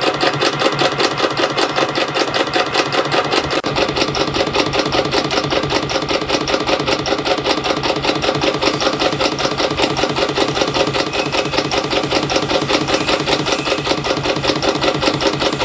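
CNC spring coiling machine running, feeding and coiling 0.3 mm wire into variable-pitch compression springs with a rapid, even mechanical clatter of several strokes a second. A low hum joins about four seconds in.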